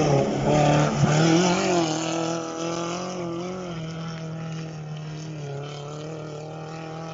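Off-road rally car engine revving hard as the car passes close, its pitch rising and dipping. It then fades steadily as the car pulls away into the distance.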